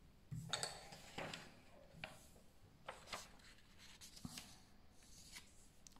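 Faint handling sounds: sheets of paper being shifted about on a wooden tabletop, with a few light, scattered taps and scuffs.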